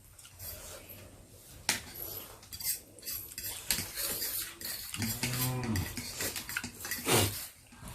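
Utensils clinking and scraping against bowls during eating, in many short clicks. About five seconds in comes a low closed-mouth hummed groan lasting under a second, then a short breathy burst.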